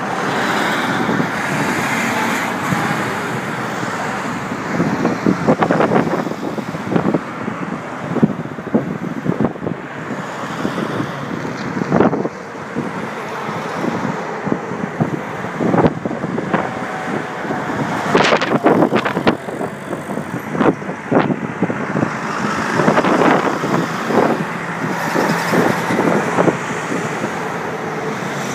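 Road traffic passing close by: a military KamAZ truck's diesel engine and tyres at first, then a steady stream of vans, cars, a box truck and a bus. Brief sharp knocks stand out at times, the loudest about 12 and 18 seconds in.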